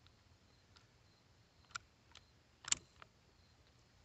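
Sharp metallic clicks from the bolt action of a single-shot Keystone Cricket .22 rifle being opened, reloaded and closed. There are about five clicks spread over a few seconds, the loudest about three-quarters of the way through.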